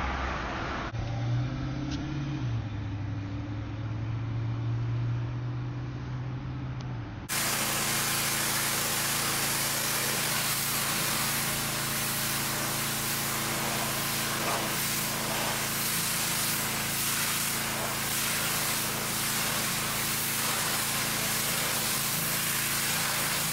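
A low steady hum, then, about seven seconds in, a pressure washer spraying water takes over: a loud, even hiss over the steady hum of its motor.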